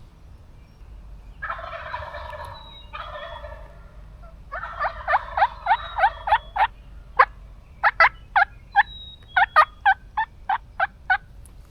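Wild turkey calling: a quick run of sharp, repeated notes about five a second, then a slower series of single sharp notes.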